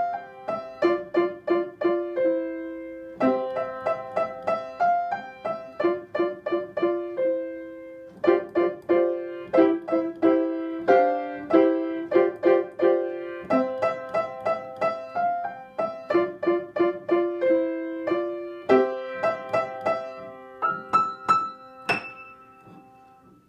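Upright piano played solo: a simple beginner's melody in short phrases of separate struck notes, with brief pauses between phrases. Near the end a high note rings out and the sound fades away.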